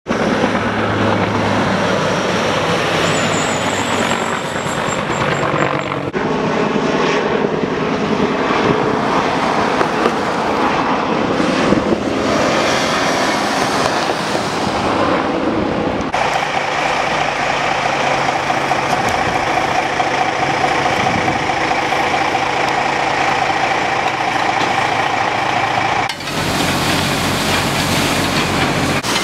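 Road traffic, with a truck and other vehicles passing close by and their engines running. A steady engine hum fills the middle part, and the sound changes abruptly a few times.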